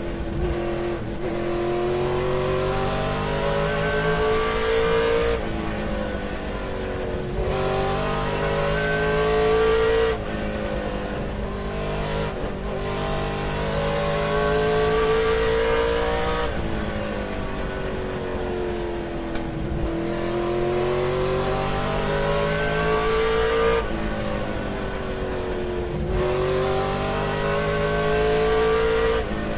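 Race car engine revving hard through the gears: its pitch climbs for a few seconds, then drops sharply at each shift, with a few stretches of falling pitch as it slows before climbing again.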